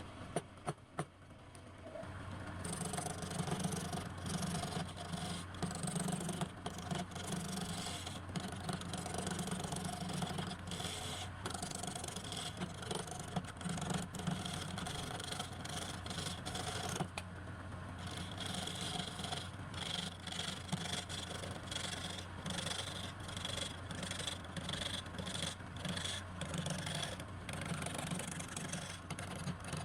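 A wood lathe running with a steady hum while a turning tool scrapes and cuts the spinning wood. The scraping starts about two seconds in and pauses briefly past the middle.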